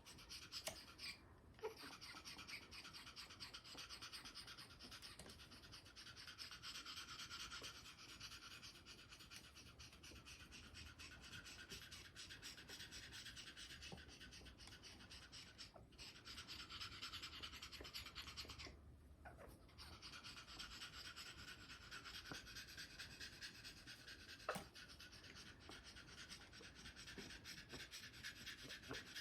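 Amazon parrot making a fast, pulsing vocal sound in runs of several seconds broken by short pauses, part of its hormonal springtime mating display.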